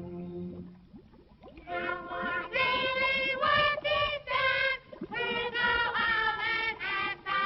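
A chorus of children's voices singing short phrases of held notes, on an old, narrow-sounding cartoon soundtrack. The orchestral music before it fades out in the first second.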